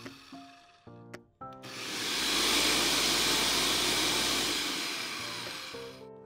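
Electric blender motor running at speed, blending pandan leaves with water into a smooth green liquid. The running stops briefly about a second in, starts again, then slowly fades near the end.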